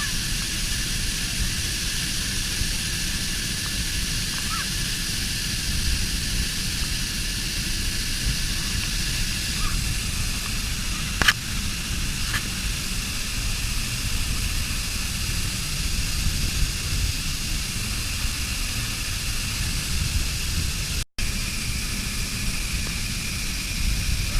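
Waterfall: a steady rush of falling water with a low rumble, unchanging throughout. A single sharp click sounds about eleven seconds in, and the sound drops out for a split second near the end.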